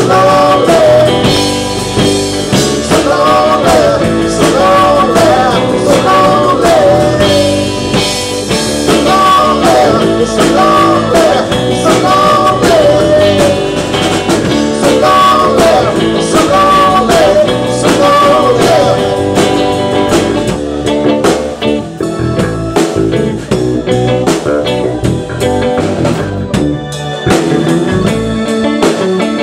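Live band playing a blues-style rock number on electric guitar and drum kit, with a man singing lead.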